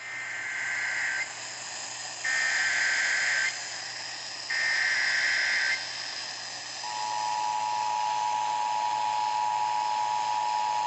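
NOAA Weather Radio Emergency Alert System tones received on a weather radio: three short data bursts of the SAME header, each about a second long and a second apart. About seven seconds in, a steady two-pitch attention tone starts and holds. Under all of it is a steady radio hiss. The header opens a severe thunderstorm warning.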